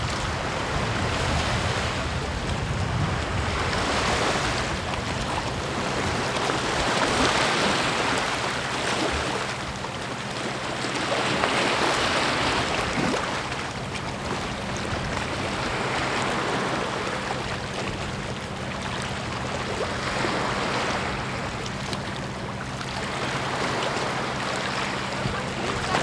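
Sea waves breaking and washing up a beach, the surf swelling and easing about every four seconds. From about a third of the way in, a faint steady low engine drone runs underneath.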